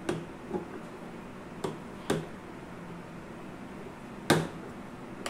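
Sharp clicks and knocks of hand tools against scooter parts as a mechanic works in the engine area, about five in all, the loudest about four seconds in, over steady background noise.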